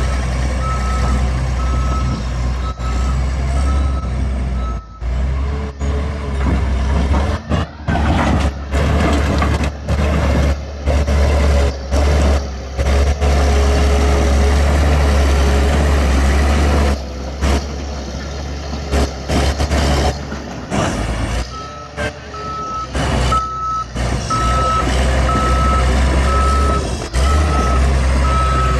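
Bulldozer's diesel engine running steadily while its reversing alarm beeps about one and a half times a second, for the first few seconds and again through the last several seconds. The sound drops out briefly several times.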